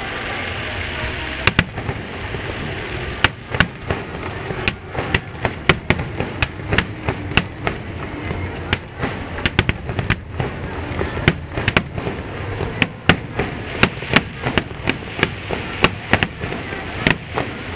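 Aerial fireworks bursting in a rapid, irregular string of sharp bangs, several a second, starting about a second and a half in.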